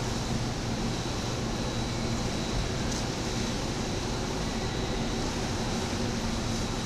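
Steady wash of noise in an indoor swimming pool hall: water sloshing and splashing over a constant low hum.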